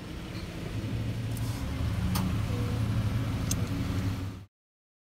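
Car engine and road hum heard from inside the cabin as the car rolls slowly up to a drive-through window, a low steady hum that grows louder about a second in. The sound cuts off suddenly just before the end.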